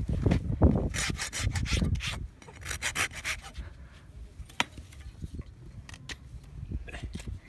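Hoof rasp worked across a horse's hoof: a run of rough rubbing strokes for about the first two seconds, then a few lighter scrapes and taps.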